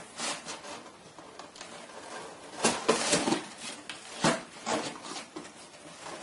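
Cardboard box and its cardboard dividers rustling, scraping and knocking as a cat squeezes and rolls around inside it. The noises come in irregular bursts, loudest about three seconds in and again a second later.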